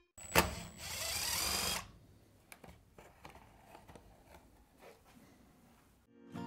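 Makita 18V cordless impact driver running in one short burst of about a second and a half, hammering out a fastener on the string trimmer's housing. This is followed by a few faint clicks and taps of parts being handled.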